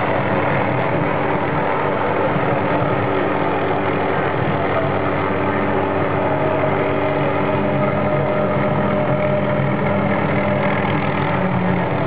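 An engine idling steadily, with a constant pitch.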